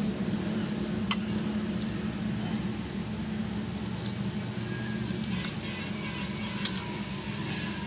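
Metal ladle clinking and scraping against a steel kadhai and a steel bowl as curry is served out, with a sharp clink about a second in and another near the end. A steady low hum runs underneath.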